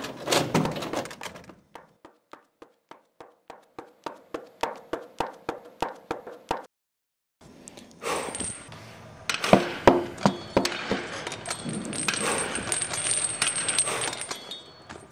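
A run of sharp, evenly spaced impacts on a gymnasium floor, about three a second, as a person runs across the gym. After a brief break comes a dense clatter of knocks and noise with a high hiss.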